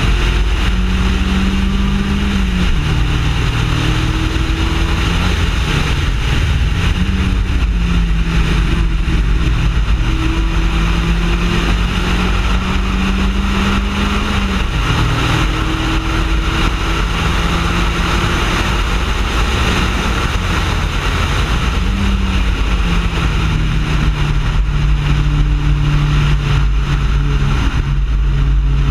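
Mazda Miata race car's engine running hard on track, its pitch climbing slowly and dropping sharply at gear changes about 3 and 15 seconds in. It briefly dips and picks up again around 7 and 22 seconds.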